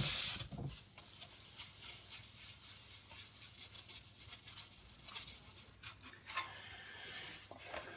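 Steel wool scrubbing paint off a plastic RC car body, a faint, irregular scratchy rubbing, louder for a moment at the start. The paint is being stripped with brake fluid and paint remover.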